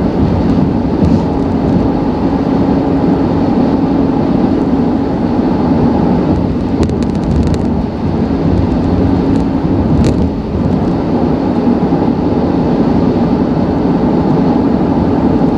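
Honda Ridgeline's V6 engine and road noise heard inside the cab while cruising at highway speed with a trailer of about 3,000 pounds in tow: a steady, loud rumble with a faint steady hum running through it.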